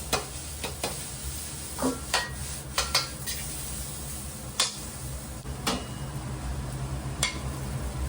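Green-onion fried rice being stir-fried in a hot pan: a metal utensil clinks and scrapes against the pan about ten times at an irregular pace over a steady sizzle, with a low hum underneath.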